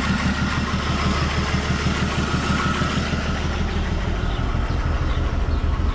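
Ford 300 cubic-inch inline-six in a 1970 F-350 idling steadily with an even beat.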